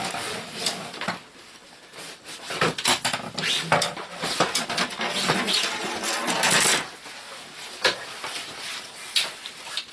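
Metal side poles of a folding camping cot being slid out of the cot's fabric sleeves: irregular metallic clinks and rattles mixed with the rustle of the fabric.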